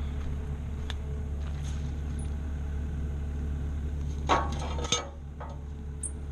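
Skid steer engine idling steadily, with two sharp metal clanks about four and five seconds in, after which the engine hum drops away.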